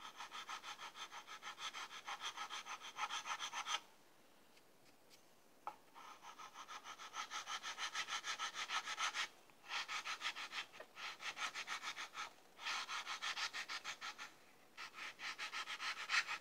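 Quick back-and-forth rubbing strokes of a small sanding block worked inside the wooden neck pocket of an electric guitar body, about four strokes a second. The strokes come in several runs with short pauses, the longest about four seconds in.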